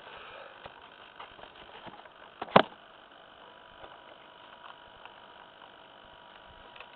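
A single sharp click-knock, doubled, about two and a half seconds in, as the canopy is pressed into place on the foam fuselage of a Multiplex Tucan model plane, over faint background noise.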